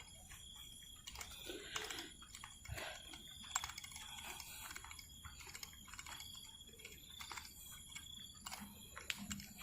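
Faint, irregular clicking and ticking, with a thin high steady tone that comes and goes.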